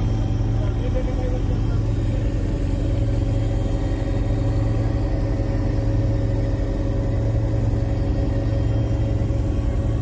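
Helicopter cabin noise in flight: a steady low drone from the engine and rotors, with a faint high whine above it.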